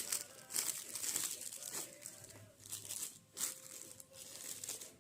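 Parcel packaging crinkling and tearing in irregular bursts as it is unwrapped by hand.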